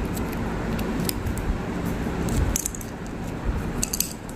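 A foil strip of Disprin tablets being torn open and handled: crinkling foil with several small sharp clicks and clinks.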